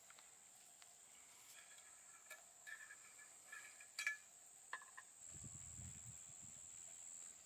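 Faint steady high-pitched insect drone, with a few light clicks and a sharper click about four seconds in as a metal thermos flask is unscrewed; a soft low rumble comes in over the last two seconds.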